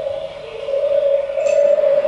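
A high singing voice holding one long note on a vowel, wavering slightly and dipping a little lower about half a second in: a vocal exercise or phrase being sung in a singing lesson.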